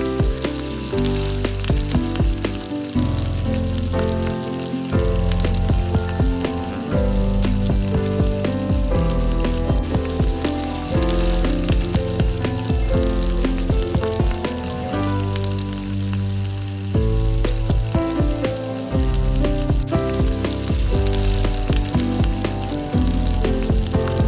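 Hot oil sizzling in a miniature pan as food fries, a steady crackling hiss, under background music with held notes.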